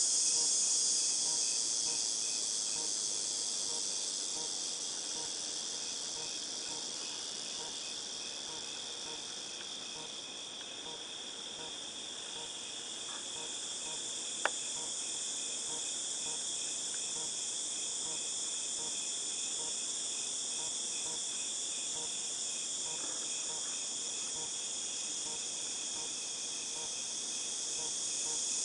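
Chorus of cicadas: a continuous high-pitched shrill drone that eases a little about a third of the way through and builds again toward the end. A single sharp click sounds about halfway through.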